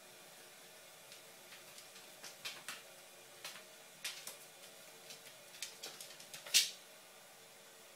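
A cat's paws and claws tapping and skidding on a hard wooden floor as it pounces, in scattered irregular clicks, with one louder scuff near the end.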